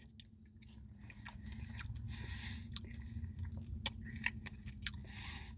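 A person chewing a mouthful of Dairy Queen Blizzard soft-serve with brownie pieces: faint, scattered wet mouth clicks, over a faint steady low hum.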